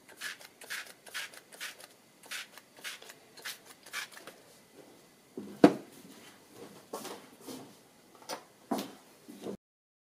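Hand-held spray bottle spritzing onto a wet painting, a quick run of about eight short sprays, two a second. About five and a half seconds in comes a loud knock, followed by a few more spritzes and knocks.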